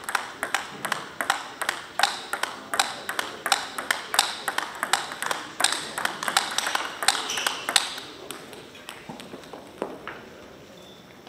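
Table tennis rally: the ball clicks off the bats and the table in quick alternation, a few hits a second. The rally ends about eight seconds in, followed by a couple of lighter ticks.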